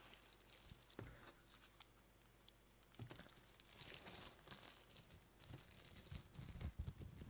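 Faint rustling and crinkling of packaging as it is handled, with a few soft clicks.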